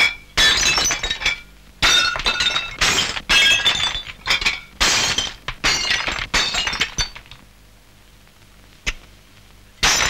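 Porcelain plates smashed one after another, a sharp crash with shards ringing about every second for some seven seconds. After a lull there is one small click, then another crash near the end.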